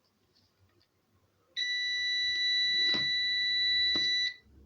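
Digital multimeter's continuity buzzer sounding one steady high beep for nearly three seconds, starting about a second and a half in, with two faint taps of the test probes during it. The beep means the wire under test conducts: the circuit is complete.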